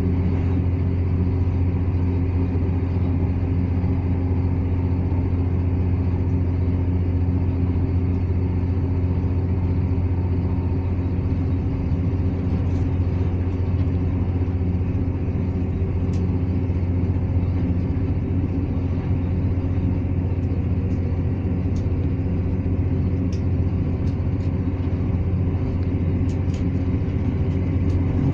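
Steady running noise inside a ScotRail Class 170 Turbostar diesel multiple unit at speed: a constant low drone from its underfloor diesel engine and transmission, mixed with wheel and rail noise, and a few faint ticks in the second half.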